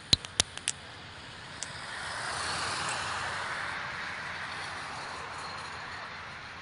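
A car driving past close by, its tyre and engine noise swelling and then slowly fading, after a quick run of sharp pops at the start.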